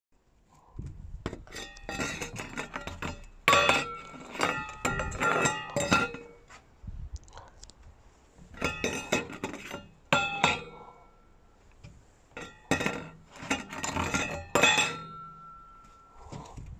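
Stainless steel feeding bowl clattering and ringing as a rabbit knocks it about, in three bouts of rapid metallic clinks with short pauses between; near the end one strike leaves the bowl ringing for a moment.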